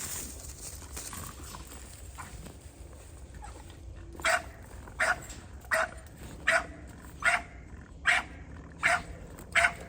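A dog barking eight times in a steady rhythm, about one bark every three-quarters of a second, starting about four seconds in.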